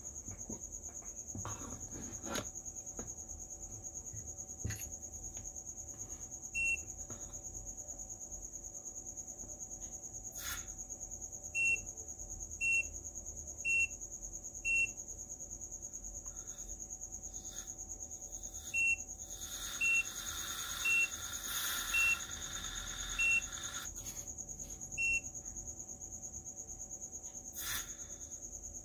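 Short, high electronic beeps, about a dozen, mostly a second or so apart but unevenly spaced, over a steady faint high-pitched whine. Near the middle, a few seconds of hissing from the hot soldering tip in a cup of water.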